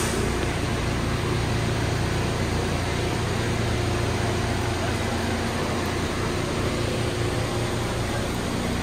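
Steady hum of a New York City subway train standing at a station platform with its doors open: the cars' air-conditioning and onboard equipment running, with a low drone underneath.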